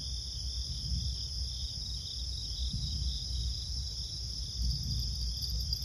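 Crickets chirping steadily in a continuous high band at night, over a low, even background hum.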